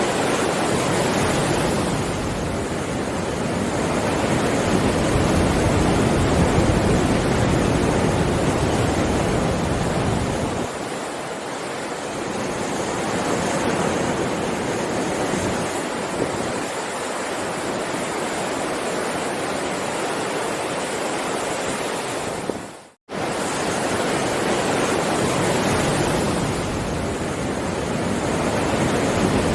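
Heavy ocean surf: a continuous wash of breaking waves that swells and eases every few seconds. About three-quarters of the way through it drops out to silence for a fraction of a second, then starts again at once.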